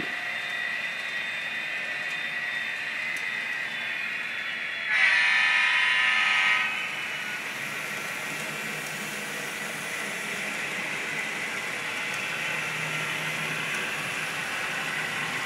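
ESU LokSound decoder in a Kato N-scale diesel locomotive playing a steady diesel engine running sound through its small speaker. About five seconds in, a louder horn blast of several tones together lasts under two seconds.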